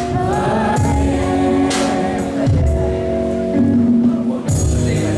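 Amplified live pop music, an instrumental passage with a heavy bass beat and held chords.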